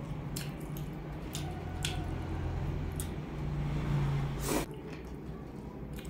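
Close-up wet mouth sounds of eating boiled chicken: a handful of lip smacks and sticky clicks while chewing, the loudest about four and a half seconds in, over a low steady hum.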